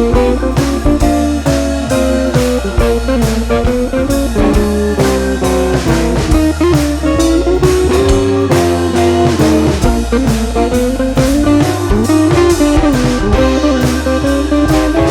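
Background music: blues-style guitar playing a melody over a steady drum beat.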